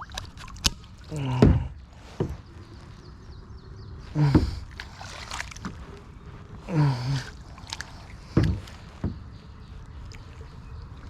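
Kayak being paddled: a stroke every two to three seconds, each with a short falling pitched groan, and a few sharp knocks of the paddle against the hull in between.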